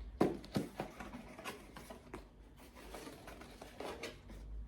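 Rustling and light clicks of packaging being handled and opened, coming irregularly.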